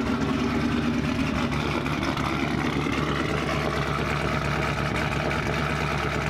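Big-cam 6.4-litre HEMI V8 of a Dodge Challenger Scat Pack 1320 idling steadily through its exhaust, still cold shortly after starting.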